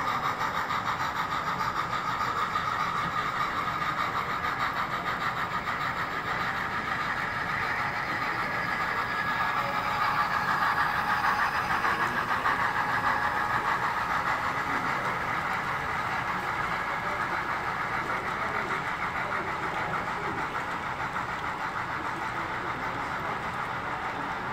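HOn3 model train, double-headed by two small steam locomotives, running along the layout's track: a steady mechanical running noise that eases off slightly over the second half.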